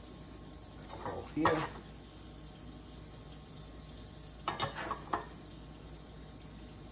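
Wet squelching as gloved fingers push minced garlic into slits cut in a raw pork shoulder, about a second in. A few quick scrapes of a small spoon in a jar of garlic come a little after the middle, over a steady low hiss.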